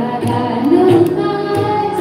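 Marathi abhang, a devotional song, sung with long, bending held notes over regular percussion strikes.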